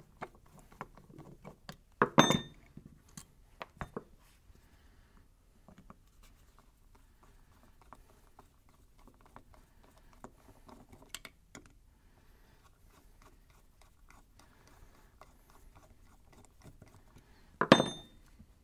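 Small metal clicks and handling noise of a flathead screwdriver backing out the float bowl screws of an S&S Super B carburetor, with loose screws lifted out by hand. Two louder metallic clatters with a short ring, about two seconds in and near the end, as metal parts are set down on the bench.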